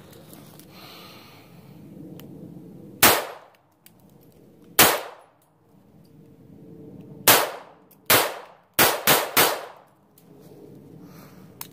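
Bersa Firestorm .380 ACP pistol firing seven shots: two spaced a couple of seconds apart, then five faster, the last three about a third of a second apart.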